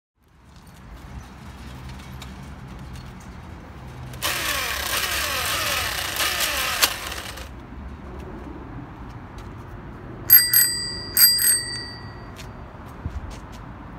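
A small handlebar bell on a child's bicycle, rung twice in quick double dings about a second apart, each ringing out briefly. A few seconds earlier comes a burst of loud rushing noise over a steady low background.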